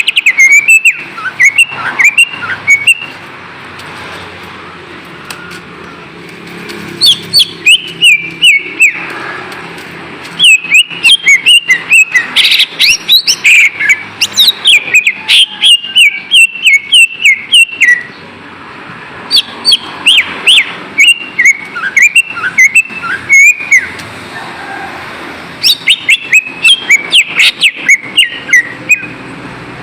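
Cucak ijo (leafbird) singing in phrases of quick, sharp whistled notes, with short pauses between phrases. It is a lure song (pancingan) used to stir a quiet caged cucak ijo into singing.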